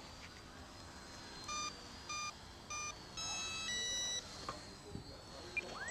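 Electronic countdown beeps: three short beeps about 0.6 s apart, then a longer final beep that steps to a different pitch, the start signal for a timed round. A faint steady high whine runs underneath.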